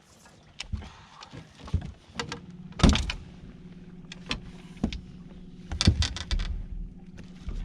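A small electric motor on the fishing boat starts a steady low hum about two seconds in and keeps running, with sharp knocks and clatter on the boat around it, the loudest about three seconds and six seconds in.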